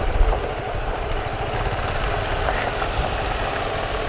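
Motorcycle engine running at low speed on a rough dirt track, mixed with steady road and wind rumble on the bike-mounted microphone.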